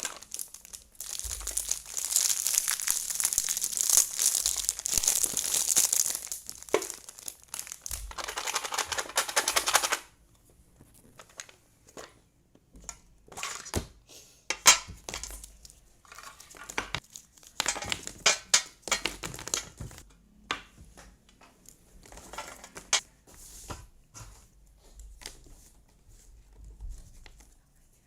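Wrapping on a jigsaw puzzle box crinkling and tearing for about ten seconds. After that come scattered light clicks and short rustles of handling.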